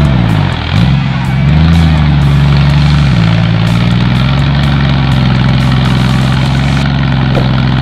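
Off-road buggy engine running hard under load as the buggy claws through a deep mud rut. The revs dip sharply near the start, climb back, then hold steady.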